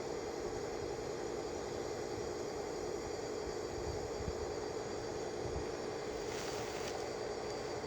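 A steady hum, with a brief hiss about six and a half seconds in.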